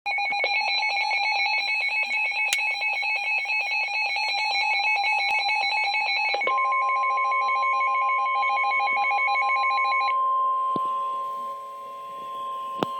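NOAA Weather Radio Emergency Alert System tones: rapid, chattering digital data bursts of rapidly alternating pitches (the SAME header). About halfway through, a single steady, piercing alert tone takes over and holds. It is the attention signal for a severe thunderstorm warning.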